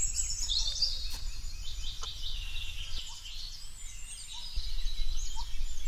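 Several birds chirping and calling in quick, high-pitched phrases over a steady low rumble, which grows louder about four and a half seconds in.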